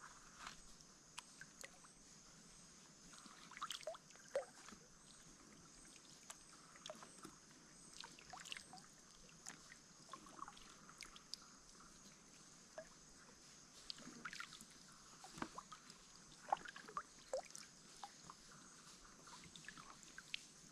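Faint kayak paddling: scattered small knocks and water drips, irregular and sharp, over a steady high drone of forest insects.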